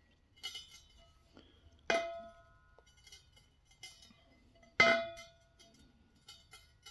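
Bare aluminium dirt-bike rim from a Honda CRF250R rear wheel knocked twice, each knock ringing on for about a second. The first comes about two seconds in and the second, louder one about three seconds later.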